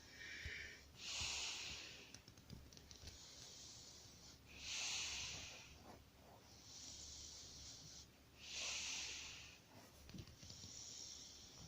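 Sleeping puppy snoring softly: raspy, hissing breaths through the nose in a slow, even rhythm, a louder breath about every four seconds with a quieter one between.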